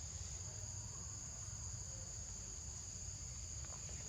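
Insects droning steadily with one unbroken high-pitched tone, over a low rumble.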